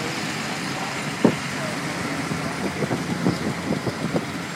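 Traffic noise from slow-moving vehicles driving past, with one sharp knock about a second in and a run of short irregular knocks in the second half.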